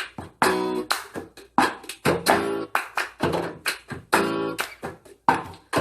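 A recorded children's song playing while a plastic cup is rhythmically tapped, knocked and slapped on a table in the cup-game pattern: sharp knocks fall between short pitched notes in a steady beat.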